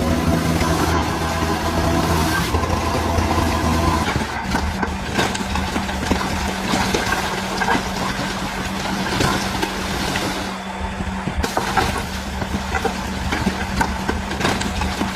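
DH17C3 bulldozer's diesel engine running steadily, its note shifting about four seconds in, with scattered clanks and rattles from the working machine.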